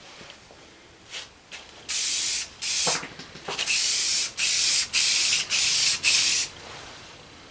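Aerosol spray can hissing in about seven short, loud sprays, each about half a second long, starting about two seconds in, with two brief puffs just before.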